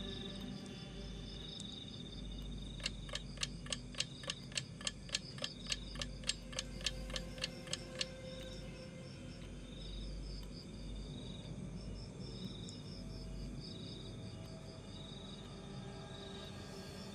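Night insects chirping in a steady pulsing trill. A few seconds in, a run of sharp, evenly spaced ticks comes in, about four a second, and stops after about five seconds.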